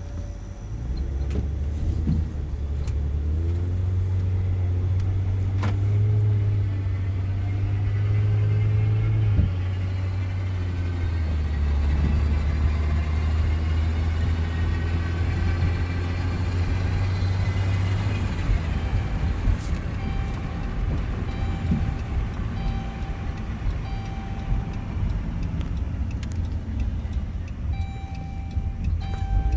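A car running, with a strong low drone that steps between steady pitches. About halfway through, a whine climbs in pitch for several seconds before levelling off.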